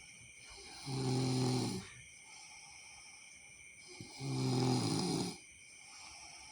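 A person snoring: two loud snores, each just under a second long and about three seconds apart, with a softer breathy hiss between them.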